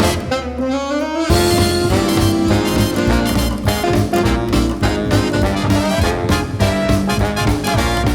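Swing-style jazz music with saxophone and brass. A single horn line slides upward alone for about a second before the full band with drums comes back in.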